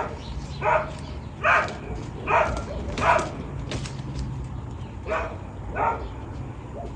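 A dog barking in short single barks, about seven of them with a pause in the middle, over a steady low hum.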